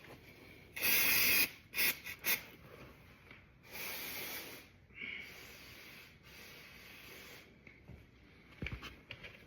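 A rag rubbing and wiping old, leaked oil off a motorcycle engine part, in several short bursts of scrubbing noise; the loudest is about a second in.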